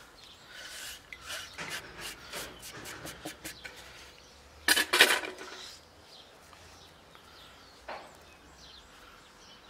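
Chopped parsley being scraped off a wooden cutting board into a stainless steel pot: a run of small taps and scrapes of board against pot. About five seconds in comes a brief, louder clatter, with one more light tap near the end.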